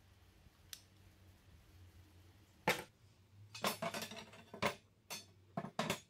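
Steel door-hinge halves and flat steel bars being set down on a wooden table and knocking against each other: a run of metal clinks and knocks, the first and loudest a little under halfway through, with several more close together after it.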